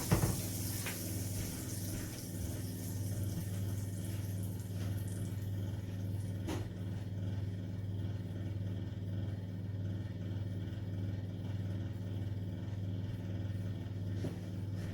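Cooking oil heating in a pot, hissing faintly at first and dying away over the first few seconds, over a steady low hum; a few light clicks.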